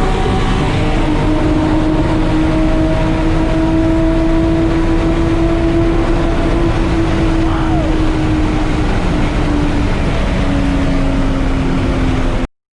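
Nissan 370Z's 3.7-litre V6 pulling hard at high revs during a roll race, a steady drone that climbs slowly in pitch over wind and road noise and drops slightly near the end. The sound cuts off suddenly just before the end.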